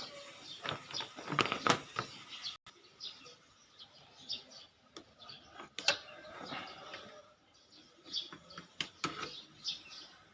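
Birds chirping now and then, amid scattered clicks and light knocks.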